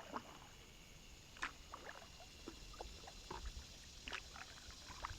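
Kayak paddling: faint, irregular light knocks and splashes of a paddle against the hull and water, a few each second.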